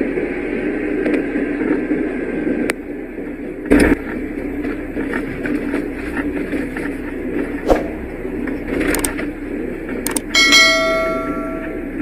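Car driving on a snow-covered road: steady road and tyre noise with a few knocks. About ten seconds in, a single bell-like ding rings for about a second.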